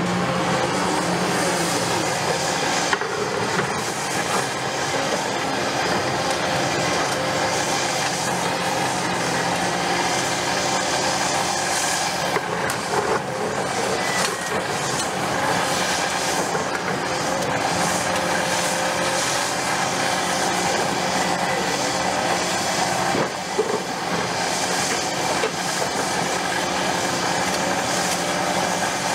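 Caterpillar 330F hydraulic excavator running steadily, its diesel engine and hydraulics working under load as it swings and digs its bucket into broken concrete, with a few knocks and clatters of rubble.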